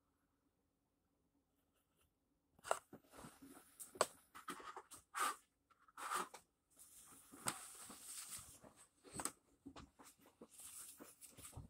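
Irregular rustling and crackling with sharp clicks, starting after about two and a half seconds of near silence.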